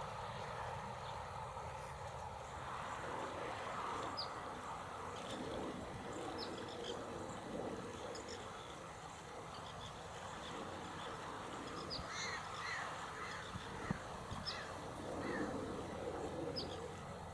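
Mallard ducklings peeping in short high chirps scattered throughout, with a few lower bird calls about twelve seconds in, over steady outdoor background noise.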